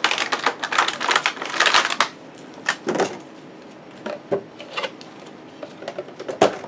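Cardboard and plastic packaging being handled: a dense run of crinkling and quick clicks for about two seconds, then scattered taps, with a sharp knock near the end.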